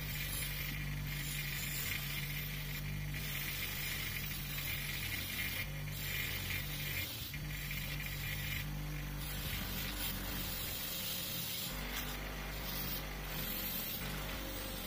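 Bench grinder running with a wire wheel, a steel adjustable spanner held against the spinning wire brush to clean off rust and old paint. A steady motor hum carries a high scratching hiss that drops away briefly several times as the spanner is moved on the brush.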